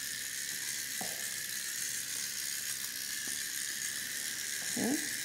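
Remote-control toy cockroach running, its small electric motor giving a steady high-pitched whir as it crawls along the floor.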